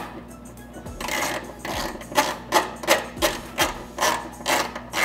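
Wrench turning the fittings of a boost controller loose: short metallic rasping strokes at an even pace, about two to three a second.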